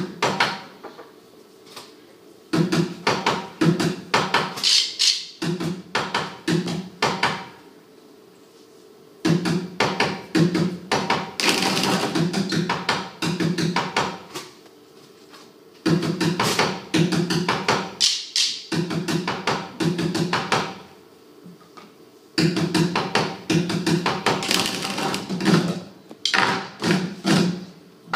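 A group of children drumming in unison on upturned plastic buckets: quick, tightly rhythmic runs of strikes a few seconds long, each followed by a pause of a second or two before the next phrase.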